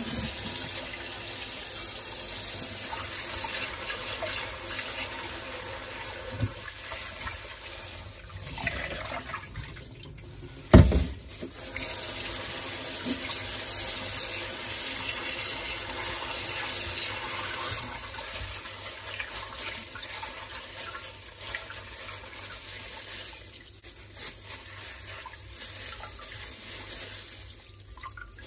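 Tap water running into a glass bowl in a stainless steel sink, splashing and swishing as raw chicken pieces are rinsed and rubbed by gloved hands. A single sharp knock comes about a third of the way through.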